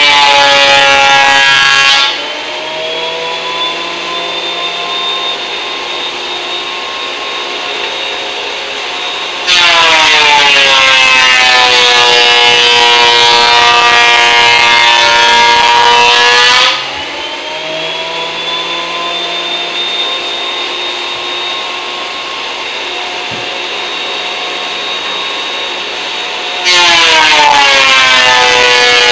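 Benchtop thickness planer running with hardwood cutting-board blanks fed through it. On each pass it gets loud and its motor pitch drops as the cutterhead takes the board, then the whine climbs back up and settles to a quieter steady idle once the board exits. One pass ends about two seconds in, a full pass of about seven seconds starts a third of the way in, and another begins near the end.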